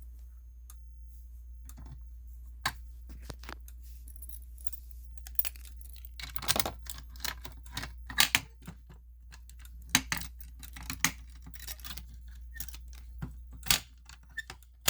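Irregular sharp clicks and clacks of a Simplex fire alarm pull station being handled, its handle and inner parts snapping and knocking, over a steady low hum.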